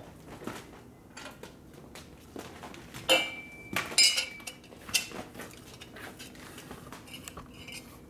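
Metal clinks and clanks of a motorcycle exhaust pipe section being handled and fitted, with a few sharp strikes about three to five seconds in, the first one ringing briefly.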